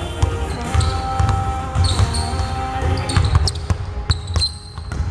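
Basketballs dribbled on a hardwood gym floor, giving repeated bounces, with short high chirps in between.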